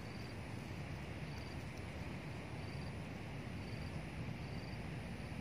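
Outdoor ambience: a steady low noise, with a short, high, trilled chirp repeating about once a second.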